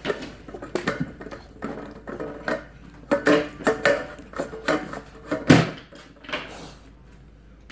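A puppy licking and nosing an empty stainless steel bowl in a raised feeder stand, the bowl clanking and ringing with repeated knocks, the sharpest about five and a half seconds in, fewer after about six seconds.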